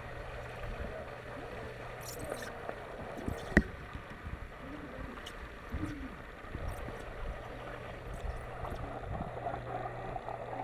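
Swim spa water churning, heard muffled from under the water, with a steady low hum beneath it. A single sharp knock comes about three and a half seconds in.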